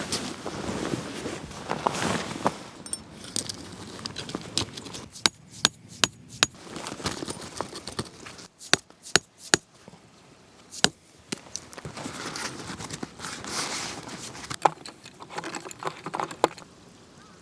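Rustling and handling noise broken by a string of sharp clicks and knocks, several coming in quick succession around the middle.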